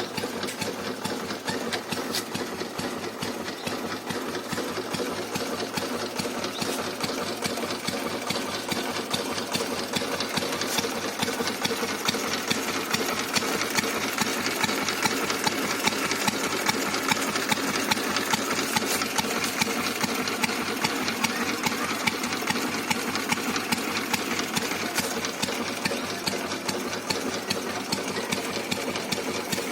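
Royal Enfield Bullet's single-cylinder four-stroke engine idling steadily with a quick, even beat, getting a little louder in the middle.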